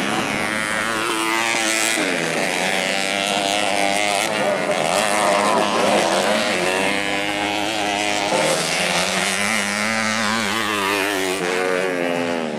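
Several modified underbone racing motorcycles revving hard at once, their engine pitch climbing and dropping again and again as they accelerate, shift and brake.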